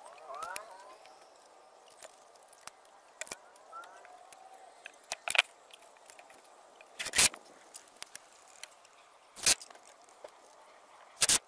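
Wood knocking and clunking as a wooden coop door is handled and set against the coop frame: small clicks, then four sharp, loud knocks at irregular intervals in the second half. A few short rising squeaks near the start.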